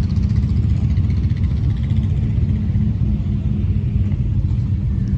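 Engine running steadily with a deep, even rumble, and a faint fast ticking over it in the first couple of seconds.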